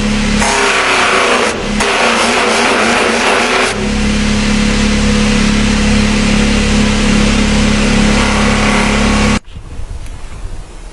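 Electric power tool running loud with a steady motor hum as it grinds the steel of a knife blade; the grinding noise eases about four seconds in, leaving mostly the motor's even hum, and everything cuts off suddenly near the end.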